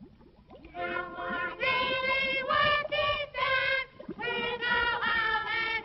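A chorus of high, childlike voices singing in short held notes, beginning about a second in. Under it is the faint crackle of an old film soundtrack.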